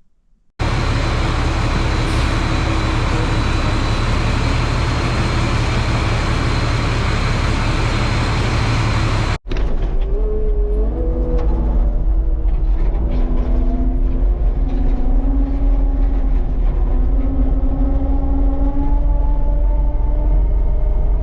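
Dump truck on the road: a loud steady engine and road noise, which cuts off abruptly about nine seconds in. The engine then runs on with its pitch rising and falling as it pulls away and climbs through the gears.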